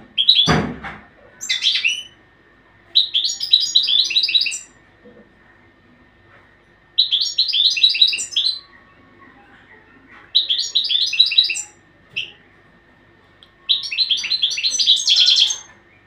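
A caged European goldfinch singing: several phrases of rapid, twittering high notes separated by pauses of a second or two. There is a thump about half a second in.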